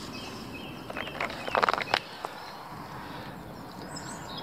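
A clear plastic compartment box of hookbaits being picked up and handled: a short clatter of plastic clicks and rattles between about one and two seconds in, then a single click.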